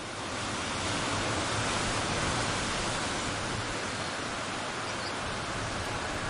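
Steady rushing of sea waves, an ambience sound effect that swells in over the first second and then holds level.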